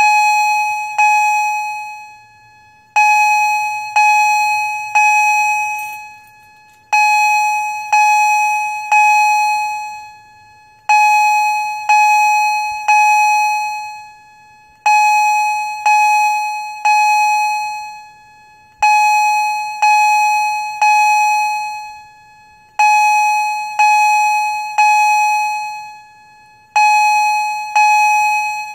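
Edwards 2455-B electronic fire alarm chime at high volume, coded in the Temporal-3 evacuation pattern: three bell-like strikes about a second apart, then a pause, repeating every four seconds. Each strike rings and dies away.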